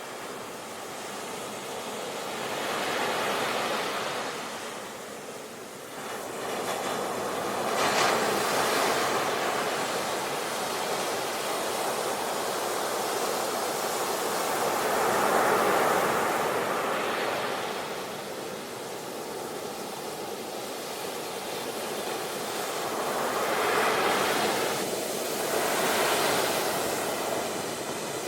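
Ocean waves breaking and washing ashore, the surf noise swelling and fading in several surges.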